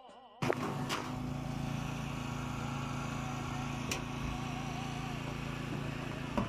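A motor running steadily in a low, even hum, with a few sharp clicks over it.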